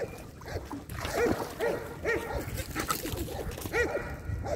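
A dog giving a series of short, high yelping calls, about five of them, each rising and falling in pitch.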